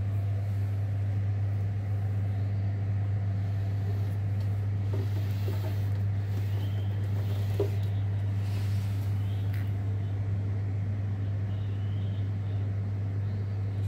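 A 150-watt audio power amplifier giving a steady low electrical hum with faint overtones, level and unchanging throughout.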